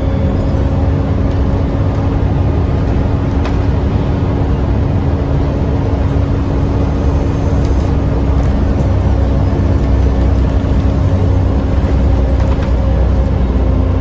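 Diesel engine and drivetrain of a 2004-registered city bus, heard from inside the passenger saloon, running steadily under way: a low rumble with a steady hum. The owner of the recording says the bus sounds quite tired.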